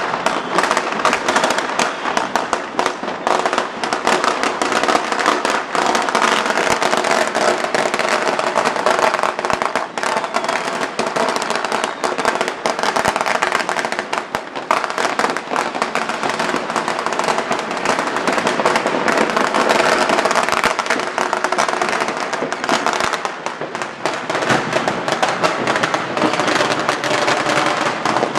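Firecrackers and fireworks going off in a dense, continuous barrage of overlapping cracks and bangs, with no break.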